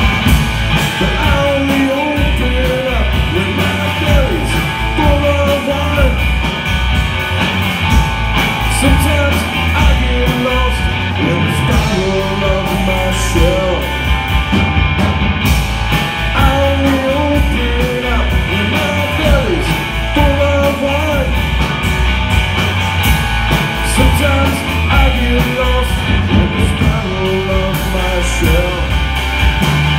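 Live rock band playing loudly: electric guitar, bass guitar and drum kit, with a short melodic line that bends and repeats about every two seconds over a steady beat.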